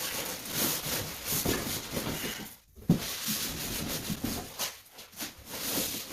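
Cardboard and styrofoam packaging being handled and pulled apart: steady rubbing and scraping, with a single knock about three seconds in.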